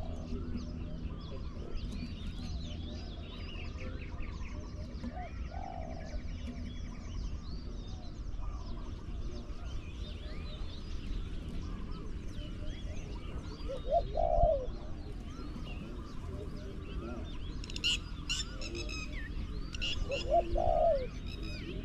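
Spotted doves cooing in short, low phrases, loudest about 14 and 20 seconds in. Other small birds chirp throughout, with a burst of sharp high chirps near 18 seconds.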